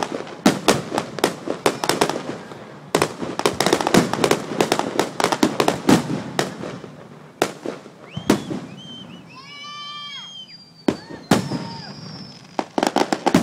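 Aerial fireworks shells bursting: a rapid string of bangs and crackles for about the first seven seconds, then a lull and a few separate bangs near the end.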